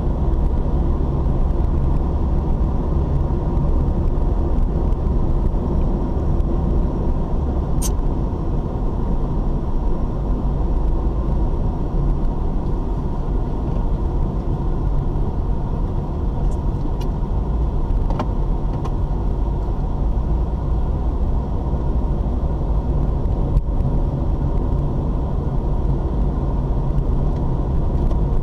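Steady low rumble of engine and tyre noise inside the cabin of a moving car, picked up by a dashcam, with a sharp click about eight seconds in and a few faint ticks later.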